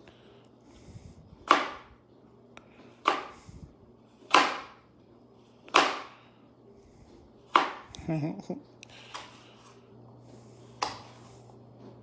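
Chef's knife slicing through Granny Smith apple quarters and knocking down onto a plastic cutting board: six sharp chops, about one every second and a half.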